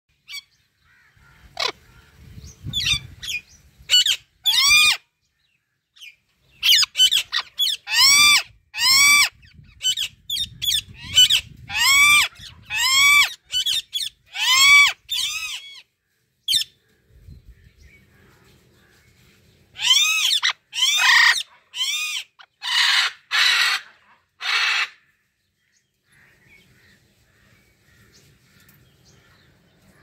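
Amazon parrot squawking: loud, short, arching calls repeated in clusters, turning into harsher, rougher squawks about twenty seconds in, then stopping a few seconds before the end.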